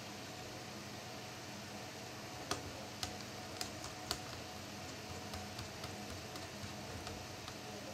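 Light clicks and taps from handling the plastic parts and small screws of a laptop being taken apart: four sharper clicks about half a second apart a couple of seconds in, then fainter ticks, over a steady hiss.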